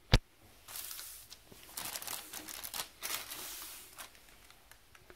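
Clear plastic packaging bags crinkling and rustling in a run of bursts as the bagged bidet attachment and its parts are handled, after one sharp click just as it begins.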